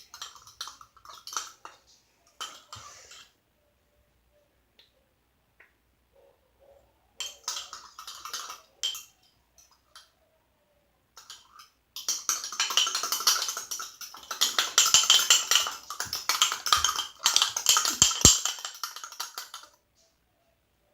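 A utensil stirring a slime mixture in a container, clicking and scraping against its sides in a few short bouts, then fast, continuous stirring from about twelve seconds in until shortly before the end.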